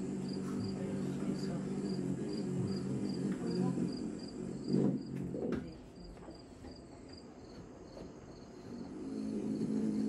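Hummingbird wings humming as it hovers and shifts around a feeder, played back through loudspeakers. The hum fades about six seconds in and comes back near the end. Under it, a faint high insect chirp, like a cricket, pulses about three times a second.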